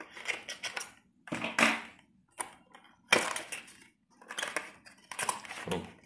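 Cardboard box being opened and a clear plastic packaging tray being slid out of it, handled in a string of short rustling, scraping bursts about once a second.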